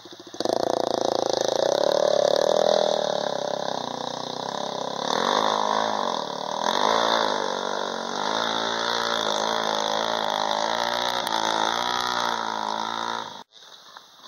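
Dirt bike engine revving on a muddy trail, its pitch rising and falling repeatedly as the throttle is worked; it starts abruptly and cuts off suddenly near the end.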